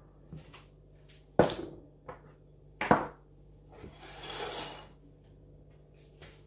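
Bowls being picked up and set down on a kitchen worktop: two sharp knocks about a second and a half apart with a few lighter clicks, then a softer scrape lasting about a second as a small ceramic bowl slides across the counter.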